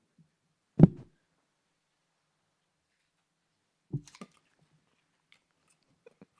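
Quiet room broken by a dull thump about a second in, then a softer knock with a few light clicks about four seconds in.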